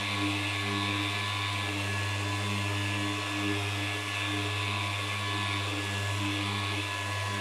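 FLEX ORE 150 mm random orbital sander running on its 3 mm stroke, sanding car clear coat with abrasive paper under no pressure: a steady, even hum with a hiss of the paper on the paint.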